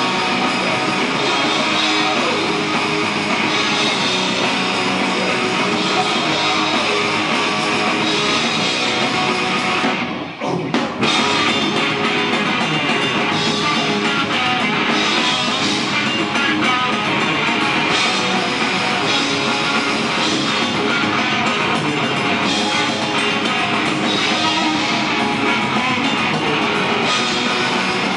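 A rock band playing live: electric guitars, bass guitar and drum kit, loud and dense. The music drops out for a moment about ten seconds in.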